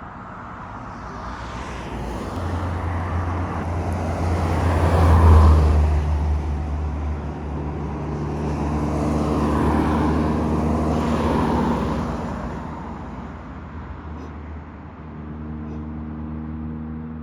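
Road traffic: motor vehicles pass close by, one swelling up and fading about five seconds in and another around ten to eleven seconds, over a low engine hum. Near the end an engine runs with a steady low drone.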